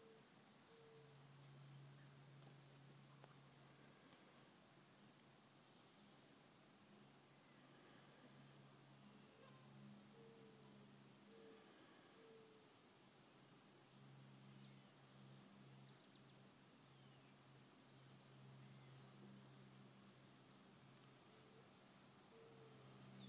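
Faint, steady high-pitched insect chirping in a fast, even pulse, with a faint low hum coming and going underneath.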